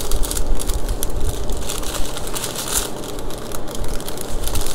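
Small clear plastic bags of diamond-painting rhinestone drills crinkling as they are handled and turned over close to the microphone, an irregular crackle.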